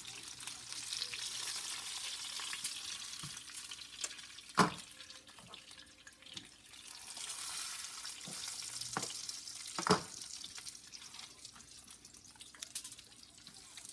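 Chicken cutlets sizzling as they fry in a pan, a steady hiss that swells and eases, with two sharp knocks about five seconds apart.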